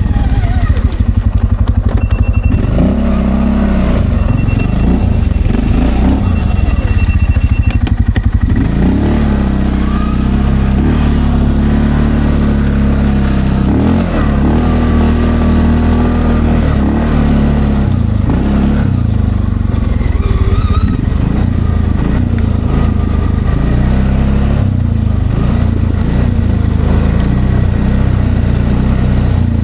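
Linhai Landforce 550L ATV's single-cylinder engine running under changing throttle while riding off-road, its pitch rising and falling several times as it revs up and eases off.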